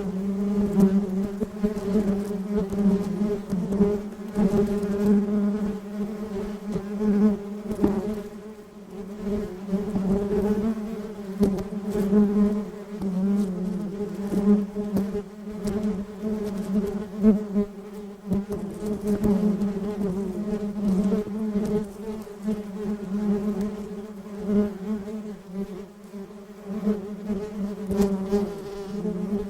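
A swarm of honeybees buzzing continuously: a dense drone pitched around 200 Hz with overtones, swelling and dipping in loudness as bees move about.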